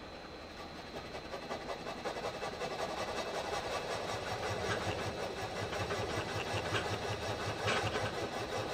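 Small milling machine plunging an end mill into the metal base of a surface grinder to cut a counterbore: the spindle runs with a steady high whine under a noisy cutting sound that grows louder as the cut goes deeper, a little chattery.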